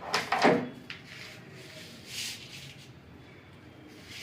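A few light clicks and knocks from a door lock handle being pushed onto its spindle and handled, then soft rubbing and handling noise.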